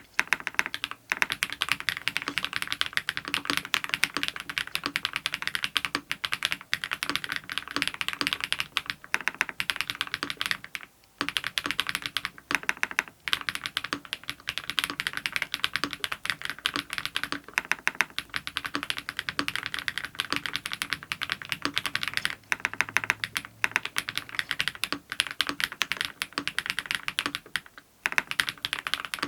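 Continuous fast typing on an ABKO AK99 mechanical keyboard with BSUN Raptor MX linear switches lubed with Krytox 105 and 205, on a polycarbonate plate with PBT doubleshot keycaps: dense keystroke clacks with a brief pause about eleven seconds in.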